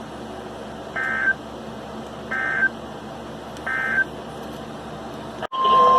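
Emergency Alert System end-of-message code: three short bursts of warbling data tones, about a second and a half apart, marking the end of the alert. Near the end the sound cuts off sharply and a loud steady tone begins.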